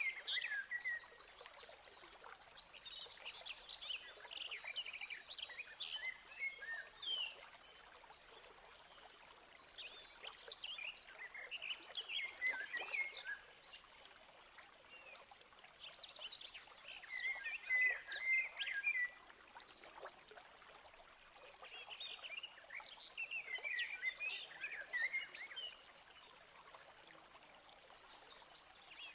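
Newly hatched great tit chicks cheeping in the nest box: bouts of rapid, high-pitched crackly peeps lasting a few seconds, four times, over faint hiss.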